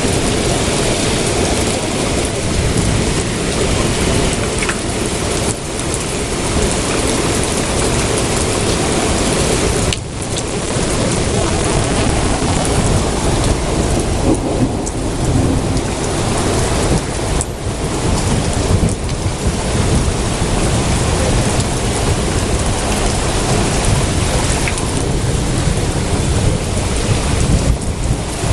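Heavy rain pouring steadily, with thunder rumbling low underneath.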